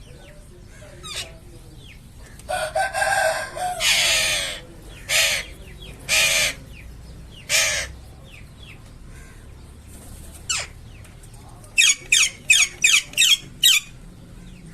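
Alexandrine parakeet squawking: a handful of loud, harsh calls, then a quick run of about seven short screeches near the end. Fainter bird chirps sound in the background.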